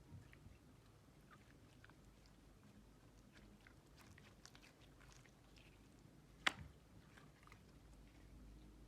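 Jelly slime being worked by hand, giving faint sticky clicks and crackles, with one sharp, louder snap about six and a half seconds in.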